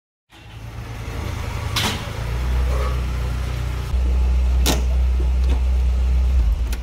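Car engine idling, heard from inside the cabin, with two sharp clicks along the way. The engine is switched off near the end.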